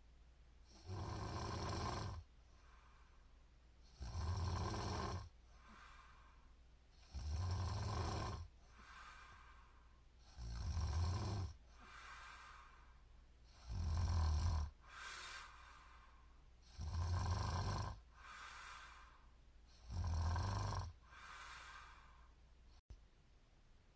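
A woman snoring in her sleep: one loud snore about every three seconds, seven in all, with softer breath sounds between.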